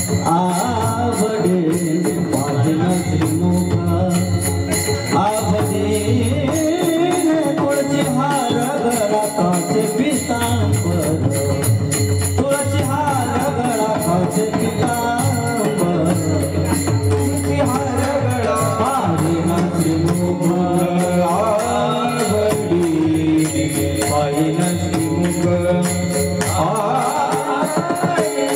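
Marathi kirtan music (a panchpadi): a devotional melody sung or chanted over steady rhythmic jingling percussion.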